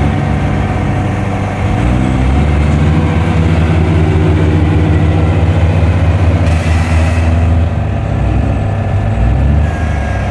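Kubota rice combine harvester's diesel engine running hard while bogged in deep mud. It revs up about two seconds in, holds steady at high revs, then eases off near the end.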